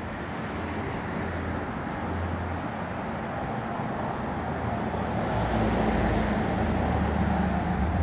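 Street traffic: a motor vehicle's engine and tyres, getting louder about halfway through as it passes close by.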